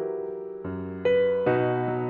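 Soft background piano music: sustained notes and chords, a new one struck about every half second to second and left to fade.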